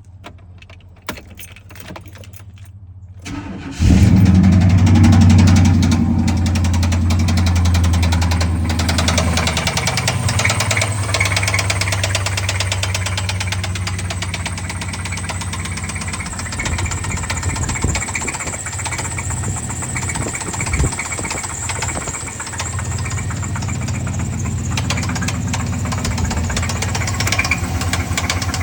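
Chevy 350 5.7-litre V8 starting about four seconds in after a few faint clicks, then idling with a steady rhythmic knock from a spun connecting-rod bearing.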